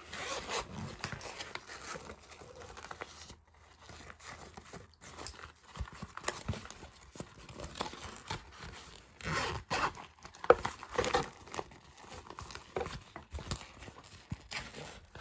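A shiny coated-fabric zippered pencil case being handled and opened: irregular crinkling and rustling of the fabric and zip, with a sharp tick about ten and a half seconds in.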